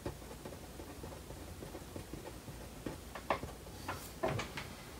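Marker pen writing on paper: faint strokes and taps, with a few short, sharper ones about three to four and a half seconds in.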